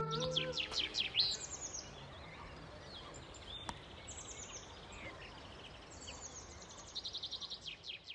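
Songbirds singing: quick repeated chirps and short high trills, several times over, above a faint steady background hiss. The last held notes of music end about half a second in.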